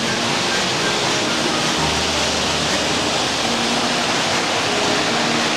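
Model trains running on a tinplate model railway layout: a steady rushing rattle of metal wheels on metal track, with a faint motor hum.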